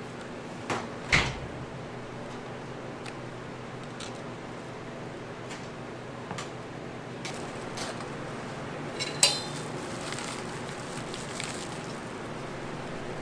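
A metal spatula clinking and tapping against a container and utensils as whipped cream is scooped and spread. The loudest tap comes about a second in, and another clink rings briefly about nine seconds in, all over a steady low hum.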